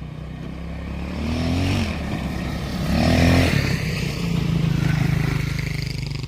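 Motorcycle engine running and revved a couple of times, the pitch rising and falling, loudest about three seconds in.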